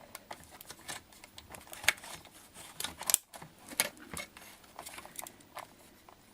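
Old plastic cable ties being snipped and pulled away: irregular sharp clicks and snips of small hand tools, the loudest about two, three and four seconds in.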